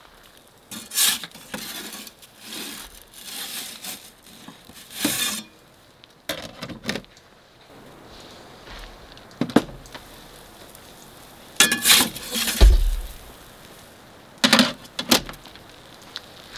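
Metal pizza peel scraping and knocking against the stone floor and steel mouth of an Ooni pizza oven as a pizza is turned and lifted out. The sound comes as a series of separate scrapes and clinks, with a low thump about two-thirds of the way through.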